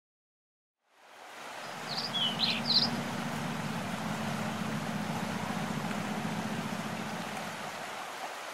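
Rushing water of a rocky stream cascade, fading in after about a second of silence, with a few short bird chirps about two seconds in.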